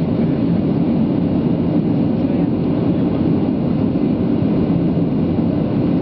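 Steady cabin drone of a Boeing 737-800 in flight: the CFM56-7B engine and the airflow heard from a window seat beside the engine, an even low rumble that holds level throughout.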